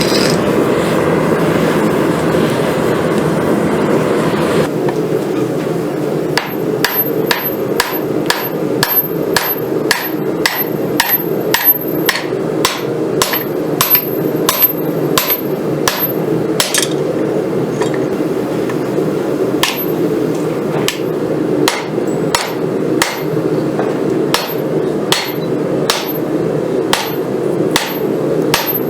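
Hand hammer striking a hot rail spring clip on the anvil to straighten it, about two blows a second, each with a short high ring, over a steady low roar from the forge. The hammering starts about six seconds in and pauses briefly midway.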